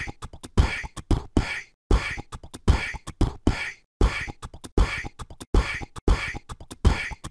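Outro beat: a dry, repeating percussive rhythm of about two hits a second, with no melody.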